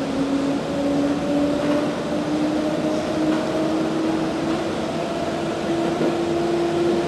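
EN57 electric multiple unit heard from inside the passenger car while running: a steady rolling rumble with the traction-motor whine slowly rising in pitch as the train gains speed.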